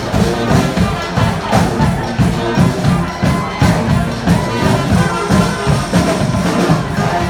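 Street band music: drums and percussion keeping a steady, driving beat under sustained pitched instrument notes.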